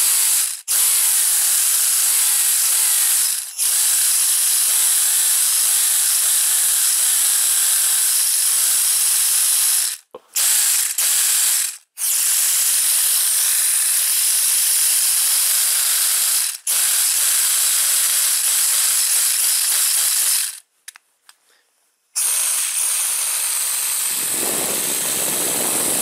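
3D-printed air-powered Wankel rotary engine running on compressed air: a loud hiss of rushing air over a whir whose pitch rises and falls as the rotor speeds up and slows. The air is shut off and reopened several times, with the longest break near the end.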